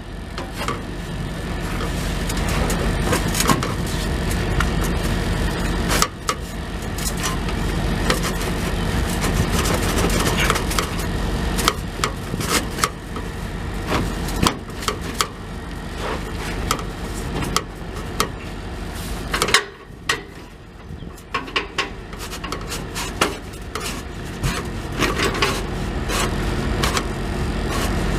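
Scattered metal clanks, knocks and scrapes as a new exhaust flex pipe is worked onto a Peterbilt 379's exhaust, over a steady low engine drone that dips briefly about two-thirds of the way through.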